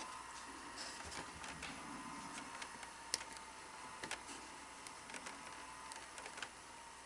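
Faint, irregular clicks and light taps from hands and a tool working on an open Betamax VCR, with two sharper clicks about three and four seconds in, over a faint steady tone and hiss.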